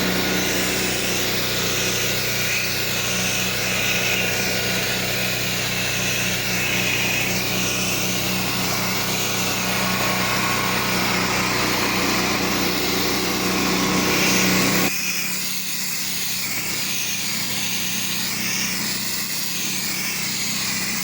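Pressure washer running steadily, its high-pressure water jet hissing as it sprays. About fifteen seconds in, the low machine hum falls away and the hiss of the spray carries on.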